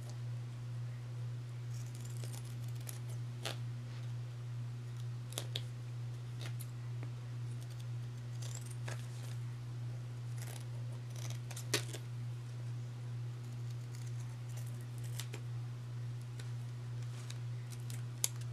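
Scissors cutting through layers of duct tape stuck to a slipper sole, in scattered separate snips, the sharpest a little past the middle. A steady low hum runs underneath.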